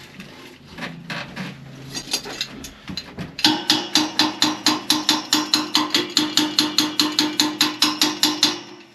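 Hammer striking metal: a few irregular knocks, then a fast, even run of ringing blows, about five a second, from about three and a half seconds in to the end.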